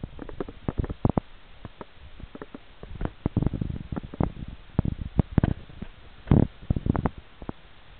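Irregular clicks, knocks and thumps close to the microphone, several a second in clusters, loudest about six and a half seconds in.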